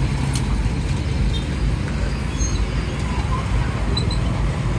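Steady low rumble of street traffic, with a single light click about a third of a second in.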